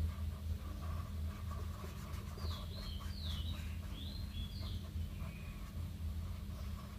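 Marker tip rubbing and scratching over paper while colouring, over a steady low electrical hum. Between about two and a half and five seconds in there are a few short, high, falling chirping notes.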